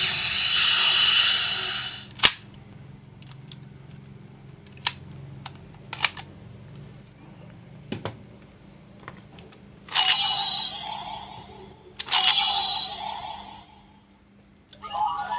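Electronic sound effect from a plastic DX toy transformation device fades out in the first two seconds, followed by scattered plastic clicks and knocks from handling the toys. About ten and twelve seconds in, a sharp click sets off a short electronic toy sound that fades out over a second or so, twice.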